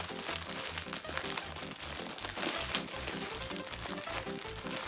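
Thin plastic packaging bag crinkling and rustling as it is pulled off a plush toy, with one sharp crackle about two and a half seconds in, over background music with a rhythmic bass line.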